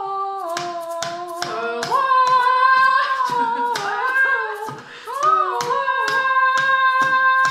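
Singing in long held notes over hand claps keeping a steady beat of about two a second.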